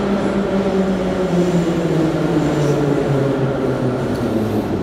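Moscow Metro train pulling into the platform, its motor whine falling steadily in pitch as it slows, over a steady rumble of wheels on track.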